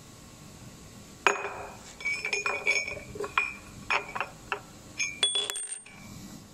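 A threaded steel rod and a laser-cut round steel tube clinking against each other and against a tile floor: about a dozen sharp metallic clinks, each with a short ringing tone.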